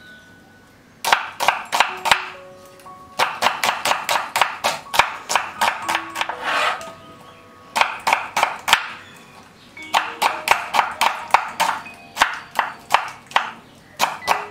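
Serrated kitchen knife chopping onion on a wooden cutting board: several runs of quick chops, about five or six a second, broken by short pauses. Soft background music plays underneath.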